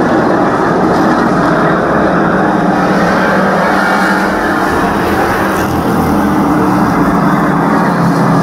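A pack of street stock race cars running together at racing speed on a short oval track: a loud, steady engine noise with no letup.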